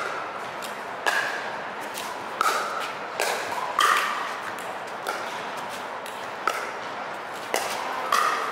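Pickleball rally: paddles striking the plastic pickleball back and forth, a string of sharp pops at irregular intervals of roughly half a second to a second, each with a brief ring.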